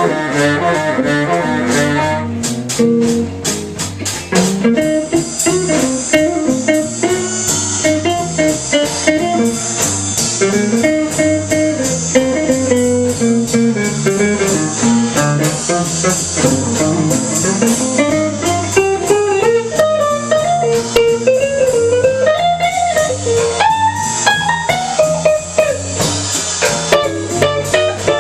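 Bebop jazz combo, with an electric guitar soloing in a running single-note line over walking bass and drums.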